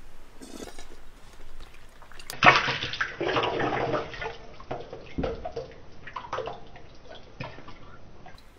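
Liquid white clay slip splashing up against the inside of a plate and running back into a stainless steel basin: a loud splash about two and a half seconds in, thinning out into spatters and drips.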